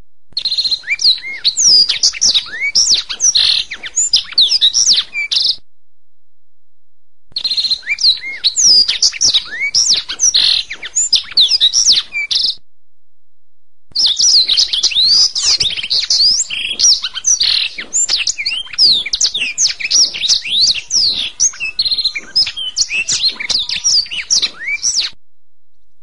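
Domestic canary singing in three long bursts of rapid trills, chirps and sweeping whistled notes, with two short silent breaks between them.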